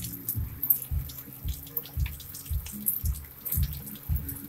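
Rain and hail ticking irregularly against a window pane, over background music with a steady low beat of about two thumps a second.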